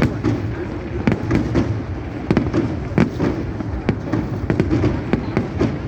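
Fireworks going off: a dense, irregular run of sharp bangs and cracks, several each second, overlapping one another.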